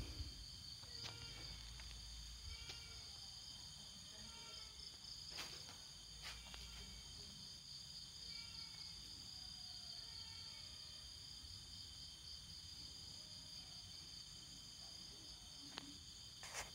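Faint, steady high trill of crickets, with a few soft clicks.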